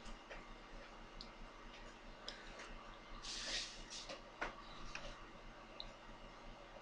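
Faint scattered clicks, with a short hiss about three seconds in, over a steady low hum.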